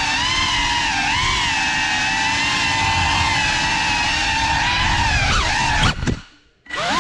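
GEPRC Cinelog 35 cinewhoop's motors and ducted 3.5-inch propellers whining steadily, the pitch wavering slightly with throttle. About five and a half seconds in the whine falls sharply and cuts out, then briefly returns with rising and falling pitch near the end.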